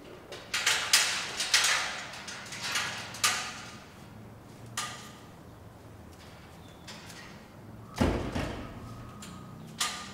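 Barred metal grille gate rattling and scraping as it is pulled open, then clanging shut with a heavy metallic bang about eight seconds in.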